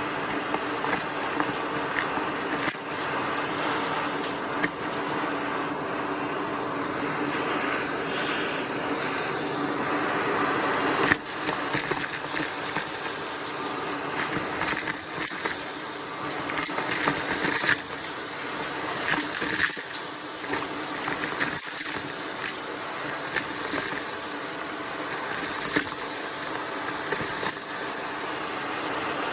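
Vacuum cleaner running steadily through a crevice tool, with crunchy crackling and rattling as debris is sucked up, and a sharp click about eleven seconds in.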